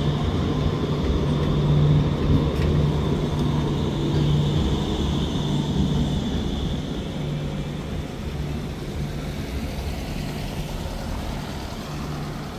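Electric street tram passing close by at low speed: a steady hum with a thin high whine, loudest in the first half and fading over the last few seconds.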